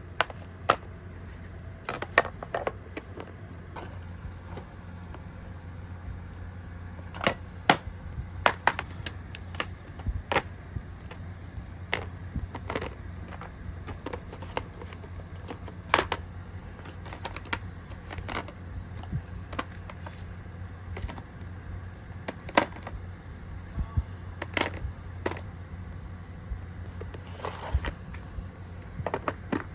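Irregular clicks, taps and knocks of small objects being picked up, moved and set down while a studio is tidied, over a steady low hum.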